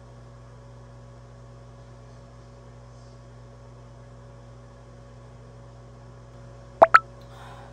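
Steady electrical mains hum. Near the end come two short, loud, sharp sounds a fraction of a second apart.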